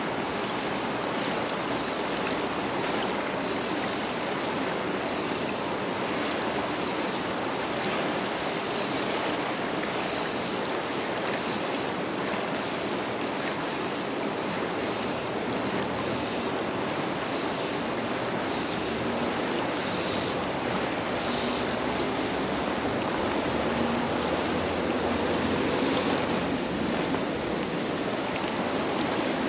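A river running high after a flood, with a steady rush of water.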